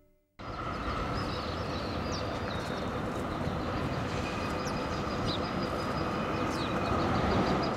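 Steady city street noise with a faint hum, and short bird chirps now and then; it cuts in about half a second in and grows a little louder near the end.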